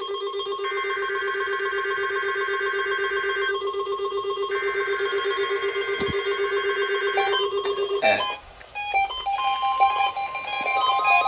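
NOAA Weather Radio warning alarm sounding for the weekly test: a steady, loud tone near 1 kHz for about eight seconds, layered with a lower pulsing tone and a higher tone that drops out once, then cut off with a click. A series of shorter beeping tones at changing pitches follows near the end.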